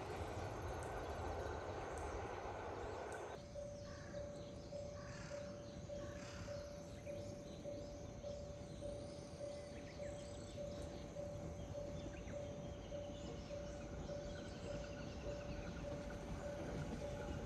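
Platform train-approach indicator sounding a steady, evenly repeated beep about twice a second, warning that a train is coming. Crows and other birds call faintly behind it. In the first three seconds a train's rumble is heard before it cuts off suddenly.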